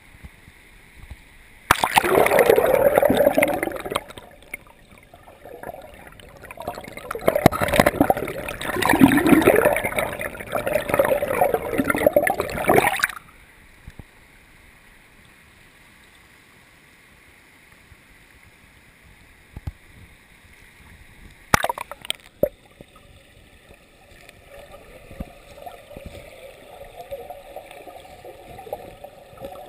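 Water splashing and gurgling in two loud stretches that stop abruptly about halfway, followed by a quiet spell, a sharp click, and a fainter steady water noise near the end.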